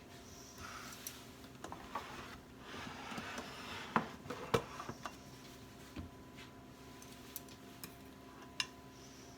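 Light clicks and taps of kitchen utensils and containers during food preparation, with two sharper knocks about four seconds in and another near the end, over a faint steady hum.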